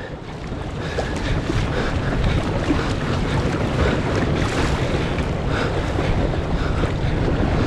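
Wind buffeting the microphone, with sea water and surf washing around it, steady throughout.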